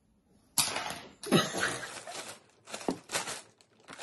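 Plastic shopping bag rustling and crinkling in irregular bursts as hands rummage through it, starting about half a second in.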